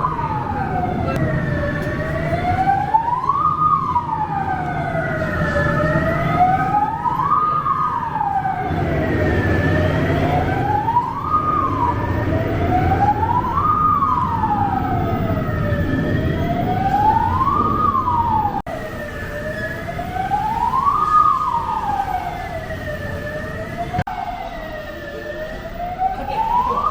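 Fire-engine siren wailing, its pitch sweeping slowly up and down about every three and a half seconds, over a low background rumble.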